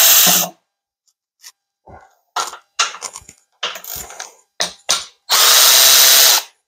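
A handheld power tool runs, stopping about half a second in, then runs again for about a second near the end, with short clicks and knocks of metal parts in between. It is spinning out bolts on the case of a TH400 automatic transmission during teardown.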